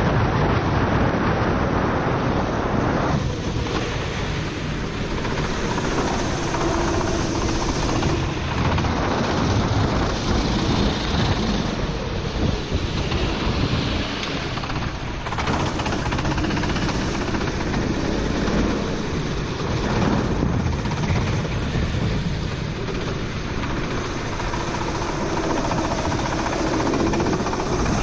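Four-stroke racing kart engine heard onboard, its pitch rising and falling as it accelerates and lifts lap after lap, under heavy wind noise and rushing noise from a wet track.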